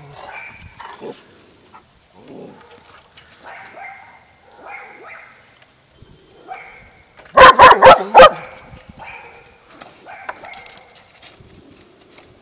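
Dogs barking: four loud, sharp barks in quick succession about seven seconds in. Softer short yips and whines come and go between them.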